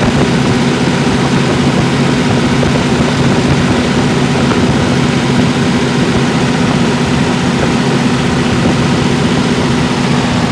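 Diesel engine of a 275 kVA generator set running at a steady speed: a loud, even drone with a low hum.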